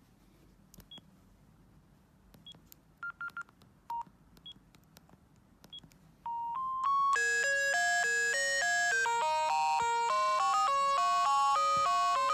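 Bird S1150 mobile phone giving a few short, thin beeps, including a quick triple beep, then about halfway through starting a ringtone: a few rising notes lead into a bright synthesized polyphonic melody of short stepped notes.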